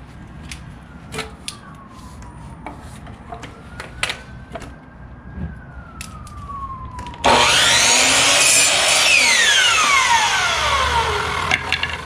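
Electric compound miter saw switched on about seven seconds in, its motor whining up to speed as the blade cuts through a wooden board. It is then released and its pitch falls steadily as the blade coasts down.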